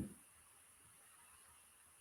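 Near silence: a pause between spoken sentences, with only faint steady background hiss.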